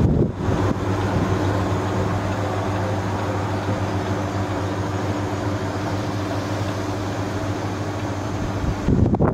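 A steady mechanical hum with a low droning tone.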